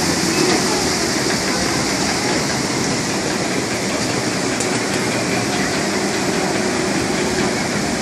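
Log flume water ride: water rushing and pouring steadily down the chutes and cascading into the channel, with the mechanical running of the lift conveyor hauling a log boat up the big slope.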